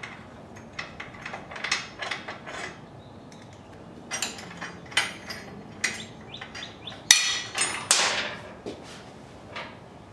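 Steel engine-mount bolts and nuts being worked loose and pulled from a Honda CX500 motorcycle frame: a run of irregular metallic clicks and clinks, some ringing briefly, the loudest cluster about seven seconds in.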